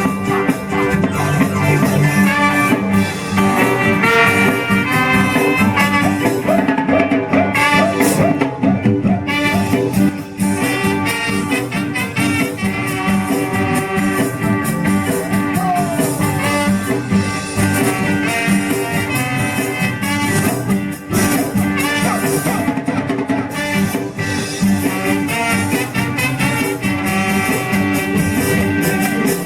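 Ska band music playing steadily.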